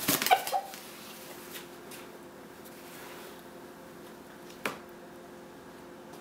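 Rooster flapping its wings in a brief, loud flurry right at the start, followed about four and a half seconds later by a single sharp tap, over a faint steady hum.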